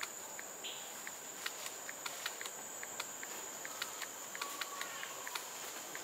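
Forest insect drone: one steady high-pitched tone, with scattered short ticks and clicks.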